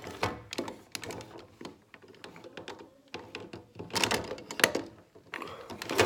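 Plastic parts of a Bison King Megazord action figure clicking, snapping and knocking as it is handled and transformed, in irregular bunches of sharp clicks with a quieter stretch in the middle.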